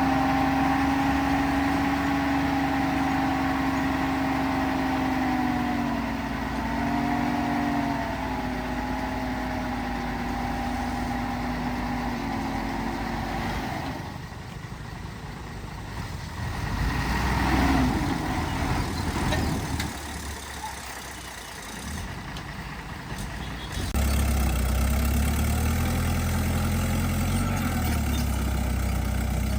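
Bulldozer's diesel engine running, its pitch dipping and shifting several times, with a brief rising rev about two-thirds of the way through; the note changes abruptly and runs lower and heavier near the end.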